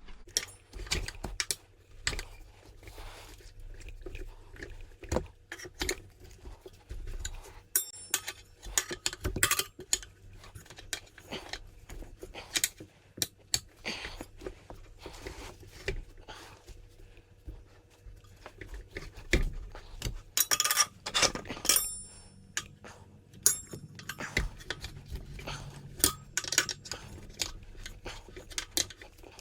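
Steel tire irons levering a rear tire's bead onto a motorcycle's spoked wheel rim: irregular metal clinks, scrapes and rubber creaks, with a few ringing metallic clinks about 8 seconds in and again around 21 seconds.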